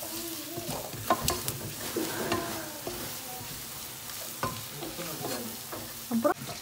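Wooden spatula stirring a spiced onion masala frying in oil in an aluminium pressure cooker: a steady sizzle with scattered scrapes and knocks of the spatula against the pot.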